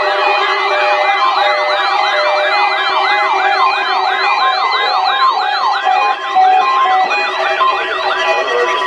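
Electronic yelp siren sweeping rapidly up and down, about three cycles a second, over a few steady tones. The sweeps slow slightly and stop just before the end.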